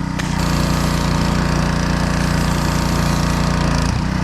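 Gas-engine pressure washer running with its DeWalt engine under load while high-pressure water sprays in a steady hiss. The spray cuts off about four seconds in, with a brief dip in the engine note, and the engine keeps running.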